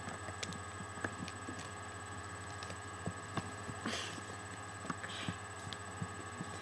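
Faint handling noise of plastic fashion dolls being moved: scattered light clicks and taps, with a soft rustle about four seconds in, over a low steady electrical hum.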